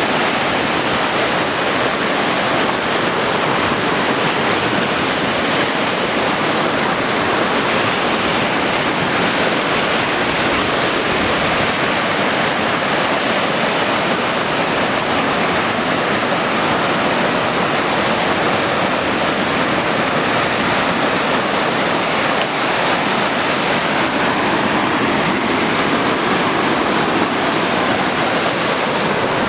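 Baltic Sea surf washing onto the shore, a loud, steady rush of waves with no single breaker standing out.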